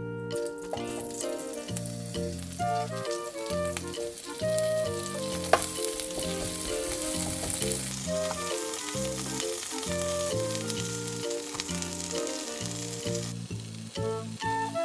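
King oyster mushroom and vegetables frying in butter in a frying pan, with a steady sizzle that drops away about a second before the end. Light background music plays throughout.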